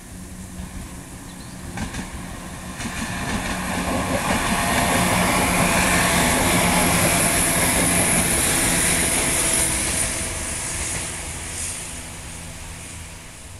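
ScotRail Class 170 Turbostar diesel multiple unit passing close by: its underfloor diesel engines and wheels on the rails build up over a few seconds, are loudest as the train goes past, then fade as it moves away.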